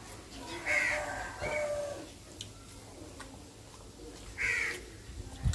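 Birds calling with harsh cries: a long call about a second in, a shorter one just after, and another near the end. A brief low thump comes right at the end.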